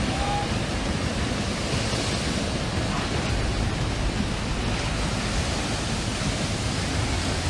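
Steady rush of surging water from a tidal bore sweeping in.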